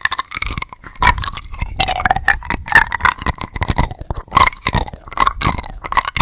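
Close-miked mouth sounds of eating building-block candies: steady wet chewing and sucking with many rapid clicks and smacks.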